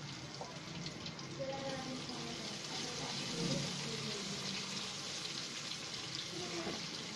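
Besan-coated potato fingers sizzling in hot oil in a kadhai as more pieces are dropped in and stirred with a spatula: a steady crackling hiss.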